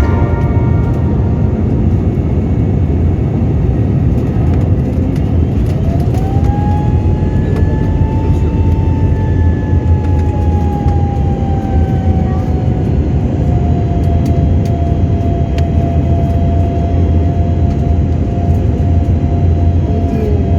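Jet airliner cabin noise: a steady low rumble of engines and airflow. About six seconds in, an engine whine rises, then slowly eases down in pitch and holds.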